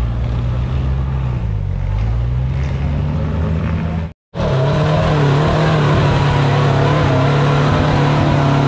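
Off-road 4x4's engine running, its pitch dipping and recovering about two seconds in. The sound drops out for a moment about four seconds in, then the engine runs on steadily at a slightly higher pitch.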